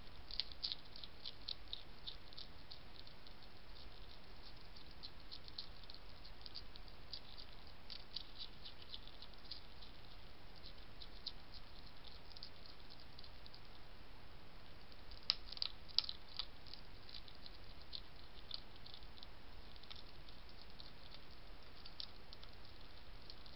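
European hedgehog crunching and chewing dry pellet food from a dish: rapid, irregular small crunching clicks, with a couple of louder crunches about fifteen seconds in, over a steady hiss from the trail camera's microphone.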